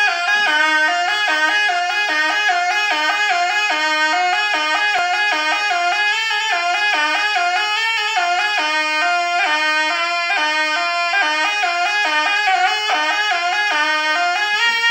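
Sompret, the Javanese double-reed shawm of barongan music, played solo: one continuous melody of quick, ornamented stepping notes with no break for breath.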